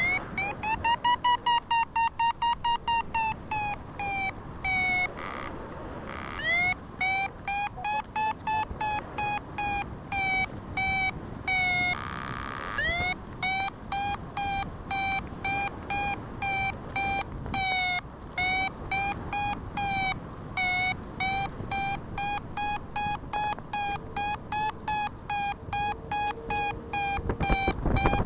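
Paragliding variometer beeping: short beeps several a second, their rate and pitch shifting, with brief breaks about five seconds in and near the middle. The beeping is the vario's climb tone, the sign that the wing is rising in lift.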